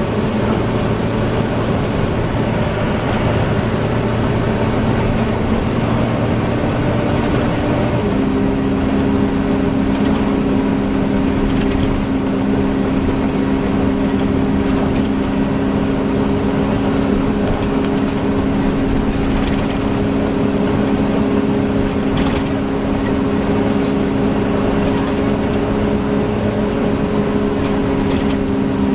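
Volvo Wright Eclipse Gemini double-decker bus running with its loud 'hoover' whine: a steady hum of several held tones. About eight seconds in the tones shift to a new, steadier set that holds to the end.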